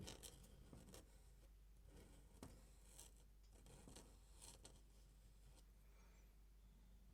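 Faint scratching of a pen drawing in ink on paper: a series of short, irregular strokes, with a sharp click right at the start.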